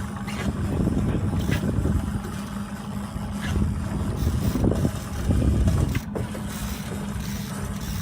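Boat engine running steadily at trolling speed, a constant low hum.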